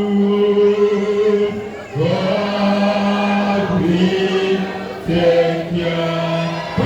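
A group of voices singing a slow hymn together, holding long notes, with new phrases starting about two and five seconds in.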